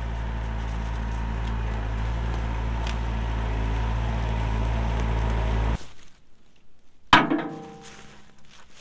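Kubota compact tractor's diesel engine running steadily as the tractor drives along, stopping abruptly a little under six seconds in. After a quiet gap, a single sharp clank with a metallic ring about seven seconds in, a rock landing in the tractor's steel loader bucket.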